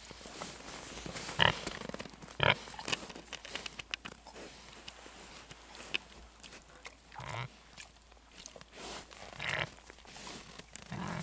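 Wild boars grunting, a handful of short grunts spread over several seconds, as they nose about in the snow.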